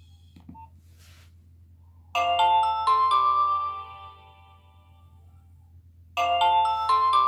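Nokia 1600 mobile phone playing a ringtone: a short phrase of quick notes that ring on, starting about two seconds in and repeating about six seconds in after a pause.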